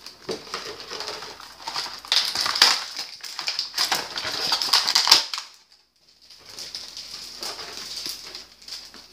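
Clear plastic packaging of an action figure crinkling and crackling as hands work the figure and its parts out of the tray. The sound drops out for about a second about five seconds in.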